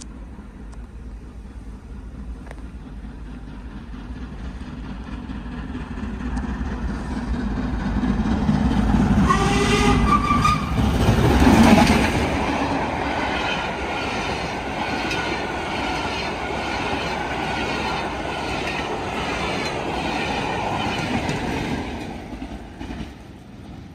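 Steam-hauled passenger train passing at speed. A steam locomotive whistle sounds about ten seconds in as the engine reaches the crossing, then the coach wheels clatter rhythmically over the rails. A diesel locomotive at the rear passes near the end and the sound fades away.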